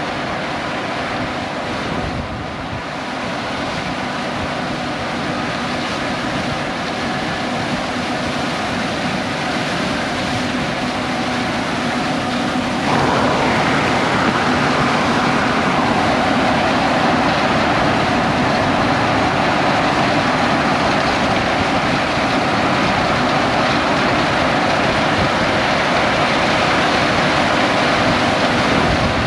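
John Deere X9 1100 combine running steadily while harvesting corn, getting louder through the stretch and stepping up suddenly about halfway through.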